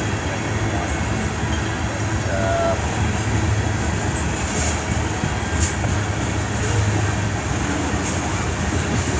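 CN freight train running at steady speed: a continuous low hum with even noise across the range, holding level throughout.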